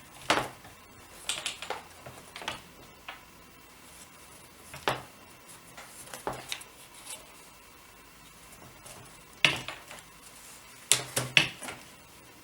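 Parts of a small folding eight-shaft table loom clicking and knocking as it is handled and assembled: scattered sharp clacks, with a loud cluster about nine and a half seconds in and another near eleven seconds.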